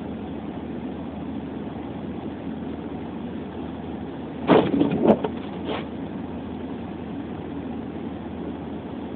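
Steady hum of a car heard from inside the cabin. About halfway through, a brief cluster of louder sharp knocks or taps lasts a little over a second.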